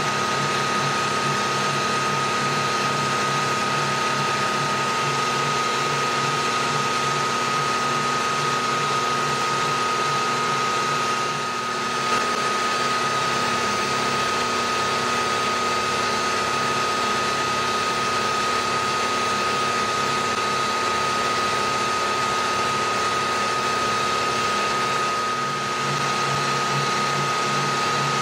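Milling machine running steadily with a high whine while a face-milling cutter takes a pass across a metal block, squaring up its sides. The level dips briefly twice, near the middle and near the end.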